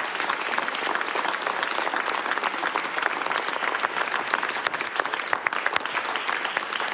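Studio audience applauding: steady, dense clapping from many hands.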